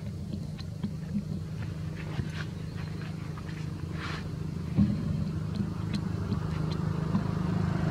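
A motor engine running steadily with a low hum, growing louder toward the end, with scattered short high chirps and ticks over it.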